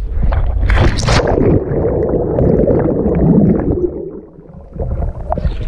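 Wind rushing over a pole-mounted action camera as the jumper falls, then a splash about a second in as he hits the water. Muffled underwater rumbling and bubbling follow for a few seconds.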